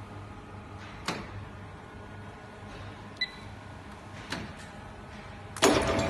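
Paper cup forming machine standing at idle with a low electrical hum, a few faint knocks and a short beep; about five and a half seconds in it starts up, and a loud, dense mechanical clatter of its running mechanism begins.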